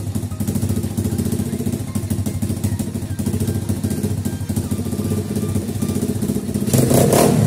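Pitbike engine idling steadily with its carburettor's idle mixture screw turned out a little further, sounding quite good. Near the end the throttle is blipped and the engine revs up louder.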